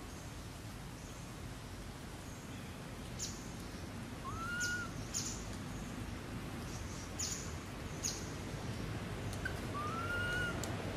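Outdoor ambience with a low steady rumble. Over it come several short, sharp high chirps and two brief arched whistling calls about five seconds apart.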